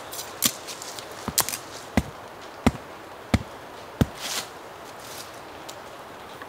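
A run of sharp chopping strikes, the strongest four evenly spaced about two-thirds of a second apart, ending a little after four seconds in.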